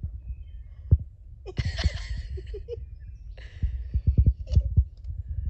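A woman laughing in two breathy bursts, about one and a half and three and a half seconds in, over repeated low thumps on the microphone.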